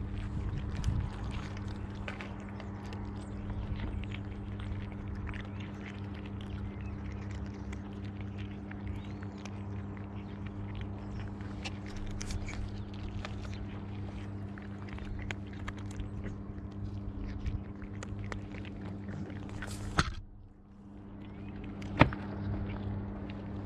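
Cats crunching dry kibble close up: a dense patter of small crunches and clicks over a steady low hum, with two sharp knocks a couple of seconds apart near the end.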